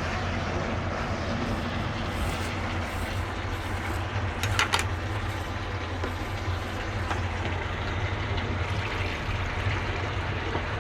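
Steady low roar and hum of kitchen cooking noise, with a brief clink of a utensil against the pan about four and a half seconds in.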